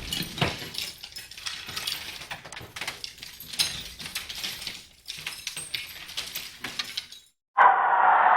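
Aftermath of an explosion sound effect: the low rumble dies away into scattered clicks and small clinks, like debris and glass fragments falling and settling. Near the end there is a brief silence, then a new loud rushing noise starts suddenly.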